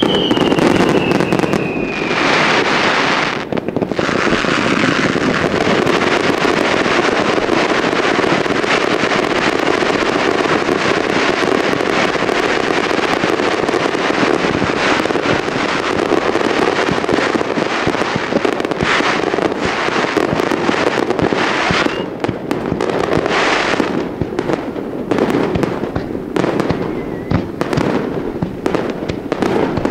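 A fireworks display: a dense, continuous barrage of aerial shell bursts and crackling, with a falling whistle over the first few seconds.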